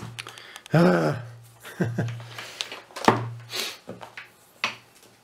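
Cables and plugs being handled on a desk: a few short knocks and clicks, with a brief wordless 'hmm' from a man about a second in and a low hum coming and going under them.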